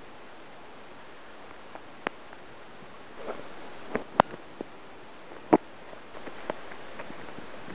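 Steady hiss of outdoor noise with a scattering of short, sharp clicks and knocks, the two loudest about four and five and a half seconds in.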